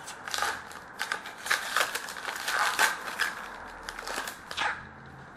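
A hockey card pack's wrapper being torn open and crinkled by hand: a run of sharp rustles and crackles, loudest midway, stopping near the end.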